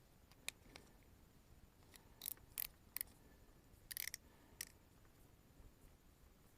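Small, sharp plastic clicks and scrapes, about ten of them in uneven clusters, as the rubber washer is pressed into an MC4 solar connector and its threaded cap is screwed on by hand.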